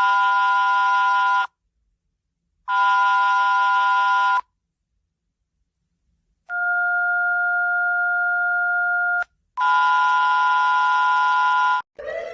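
Mock Emergency Alert System alarm tones: four blasts of steady electronic tones separated by short silences. The first two and the last are chords of several tones, each about a second and a half to two seconds long, and the third is a lower, plainer two-tone blast of about three seconds. Just before the end a new tone begins, gliding upward.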